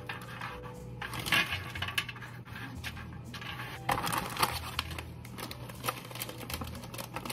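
Light clicks and clatter of small hard things, cookies and decorating supplies, being handled on a kitchen counter, with a few sharper clicks about a second in and again about four seconds in.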